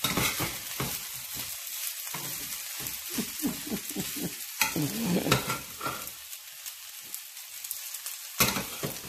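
Cooked white rice frying in oil in a skillet: a steady sizzle, with a wooden spatula stirring and scraping through the rice and knocking against the pan. The stirring eases off after about six seconds, and there is one more sharp knock near the end.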